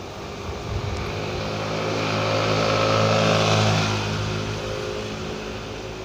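A motor vehicle passing by: its engine hum grows louder to a peak about halfway through, then fades away.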